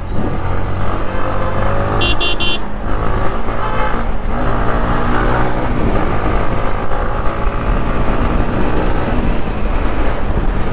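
Yamaha MT-15's single-cylinder engine and exhaust running on the move, its pitch rising and falling as the throttle is worked. A short, high-pitched beep sounds about two seconds in.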